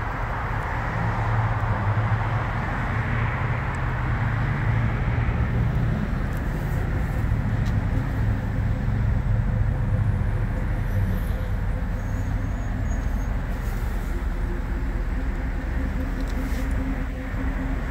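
Steady low motor-vehicle rumble with a constant hum and a light hiss above it, unchanging throughout.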